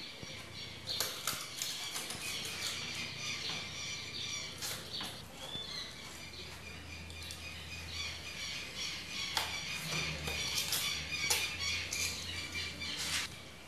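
Styrofoam (expanded polystyrene) pieces squeaking and crackling as they are handled and cut with a hot-wire cutter. A low, steady hum from the cutter's modified microwave-oven transformer comes in about halfway through.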